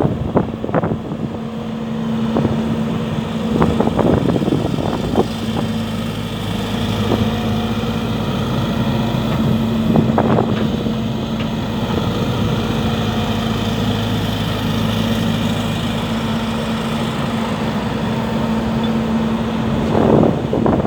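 JCB JS175W wheeled excavator's Isuzu diesel engine running at a steady speed, with occasional sharp knocks and clunks.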